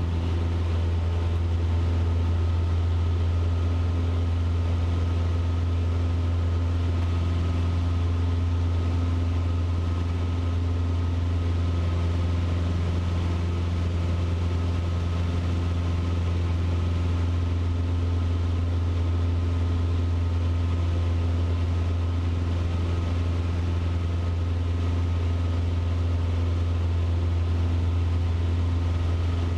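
Cessna 150's Continental O-200 four-cylinder engine and propeller running at takeoff power through the takeoff roll and climb-out, a deep, even drone heard inside the cabin that holds steady throughout.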